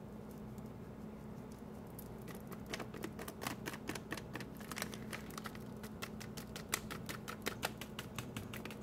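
Quick, light ticking and tapping from a small packet of Penicillium roqueforti mould culture being tapped to sprinkle the powder onto a vegan cheese disc, starting about two seconds in. A faint steady low hum runs underneath.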